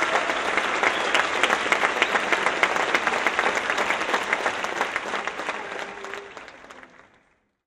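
Audience applauding with many hands clapping, holding steady and then fading out over the last couple of seconds.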